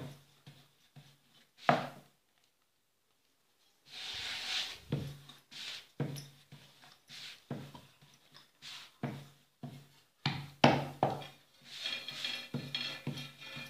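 A palm patting and spreading jowar (sorghum) roti dough on a wooden board: a dull thud and swish with each stroke, in a steady rhythm of about two a second, with a short silent break about two seconds in.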